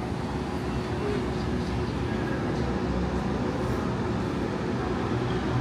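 Steady low rumble of diesel construction machinery, excavators and a pile-drilling rig, working, with a steady hum held through it.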